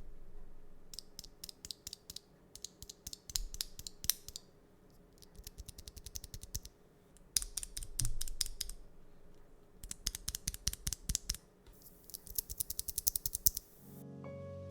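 Tactile mechanical keyboard switches on a GK61X keyboard being pressed in quick runs of clicky keystrokes. There are about six bursts, each a second or two long, with short pauses between them. Music comes in near the end.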